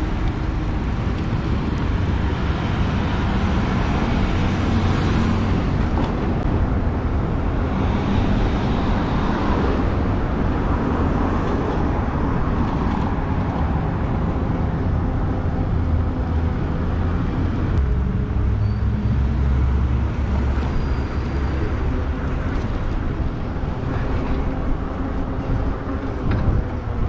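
Steady wind and road rumble from riding a Lectric XP e-bike along a road, with passing car traffic.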